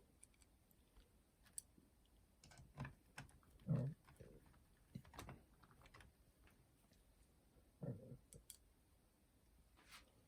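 Faint, irregular clicks and light knocks of small parts and tools being handled during boombox repair work, with two duller thumps, about four and eight seconds in.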